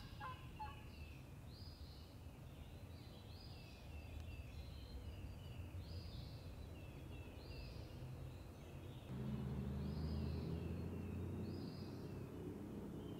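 A songbird repeating a short, high chirping phrase about once a second, over a low rumble that gets louder about nine seconds in.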